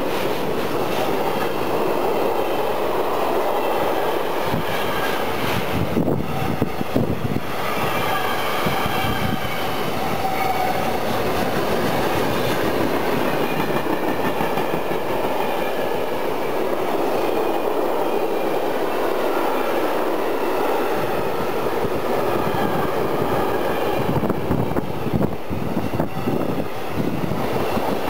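Freight train of empty stake flat wagons rolling past close by: a steady rumble and rattle of wheels on rail with faint high squealing tones. It has a run of wheel clacks about six seconds in and another near the end, as the last wagon goes by.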